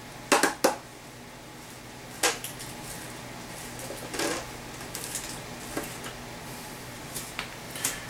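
A few sharp clicks and light knocks, scattered over the seconds, from handling a plastic jug of scale remover; the loudest pair comes right at the start.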